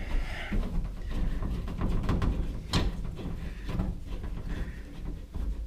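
Irregular clicks and knocks of hand tools on metal while bolts are worked loose on a car's underside, with one sharper click about three seconds in.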